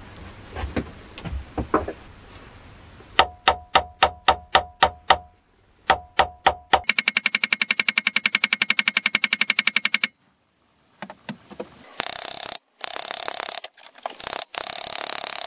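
Steel hammer striking the screw head in a brass pommel cap on a wooden knife handle, peening it over: a run of ringing strikes about three a second, then very rapid light tapping for about three seconds. Near the end, a harsh rasping noise in several stretches.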